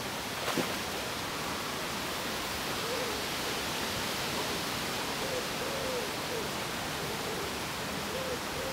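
Steady outdoor hiss, with a single sharp click about half a second in and a few faint, short, rising-and-falling calls later on.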